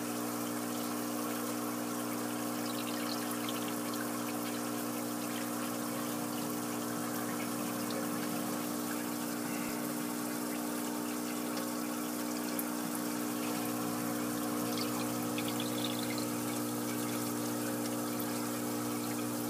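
Water steadily trickling and splashing into an aquaponics fish tank, over the constant hum of the system's pump.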